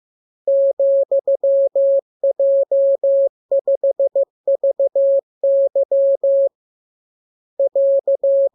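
Morse code sent as a single steady keyed tone: short dits and long dahs grouped into letters. After a pause near the end comes a final dit-dah-dit-dah-dit, the AR end-of-message sign that closes the practice radiogram.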